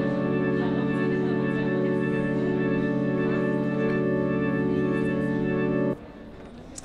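Background music: a sustained chord held steady, cutting off about six seconds in.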